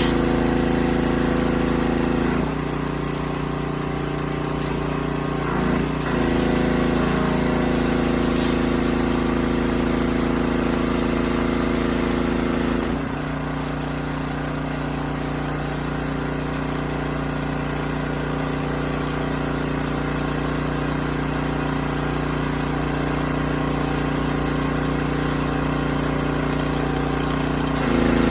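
Freshly rebuilt small gasoline engine of a Craftsman 3000 psi pressure washer running steadily. Its note and loudness drop a couple of seconds in, pick up again around six seconds, drop again about halfway through and rise near the end, as the load on the engine changes.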